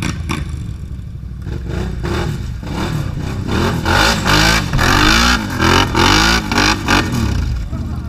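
ATV engine revving up and down again and again as the quad claws its way out of a deep mud rut, loudest through the second half, over the steady running of other quads.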